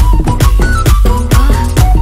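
Background music: an electronic dance track with a steady, driving beat.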